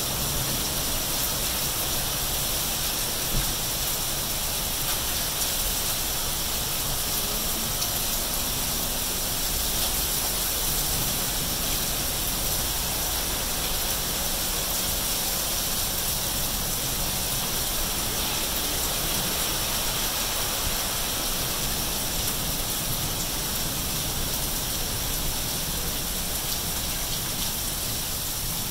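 Steady rain falling on wet pavement and gravel: a dense, even hiss that holds its level throughout.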